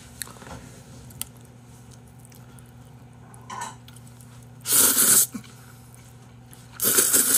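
A person slurping makguksu buckwheat noodles: two loud, short slurps, about five and seven seconds in.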